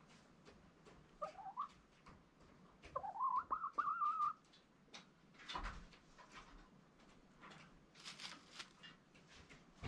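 A hen sitting on a straw nest calls twice: a short rising note about a second in, then a longer call that rises and wavers for about a second and a half. Soft rustles and clicks follow.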